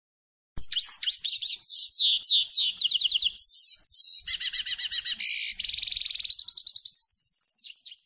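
Domestic canary singing, starting about half a second in: a high-pitched song made of trills, each a quick run of one note repeated many times before it switches to the next.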